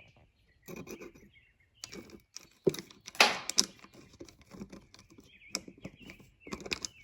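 Irregular small clicks, scrapes and rustles of hands working a screw and a metal handle on a furnace lid, with a louder scrape a little over three seconds in.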